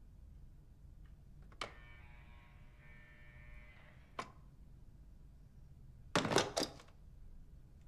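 Apartment entry-phone: a click, then the door-release buzzing for about two and a half seconds, ending on another click. Near the end the handset clatters back onto its wall unit in a quick run of several knocks.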